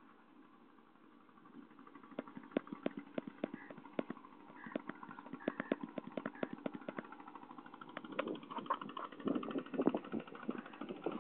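A small engine running slowly with an even knocking beat, about three knocks a second, starting about two seconds in; a louder jumble of noise builds up from about eight seconds in.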